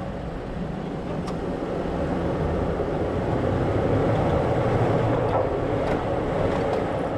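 Toyota 4Runner engine running at low speed as the truck crawls over a rocky trail, a steady low rumble with a few sharp clicks.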